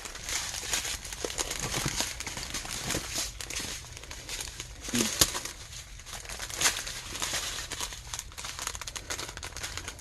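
Plastic packaging crinkling and rustling as strips of small diamond-painting drill bags are handled, with a few louder crackles about halfway through.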